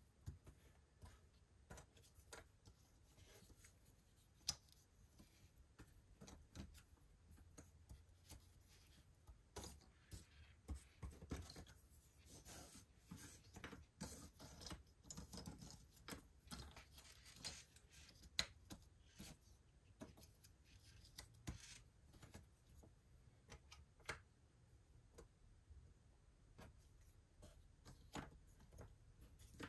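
Faint, irregular clicks and scratches of jigsaw puzzle pieces being handled and fitted together, with a sharper click about four seconds in and another a little past the middle.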